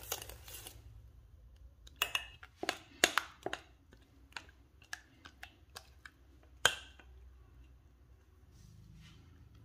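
Kitchen handling sounds: a stretch of stirring that stops within the first second, then a scattered series of sharp clicks and taps of utensils against bowls or containers, the loudest one near the end.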